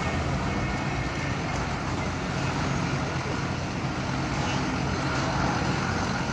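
Ashok Leyland lorry's diesel engine running steadily as the truck drives slowly past, laden with a tracked excavator on its low-bed trailer.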